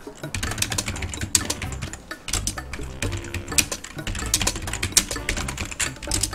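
Typing on a computer keyboard: rapid, uneven keystroke clicks in runs, with a short pause about two seconds in.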